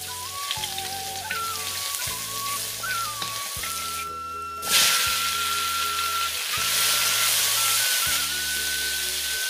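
Minced garlic, then cucumber slices, sizzling in hot oil in a steel wok, under background flute music with a bass line. The sizzle drops out briefly about halfway through, then returns louder.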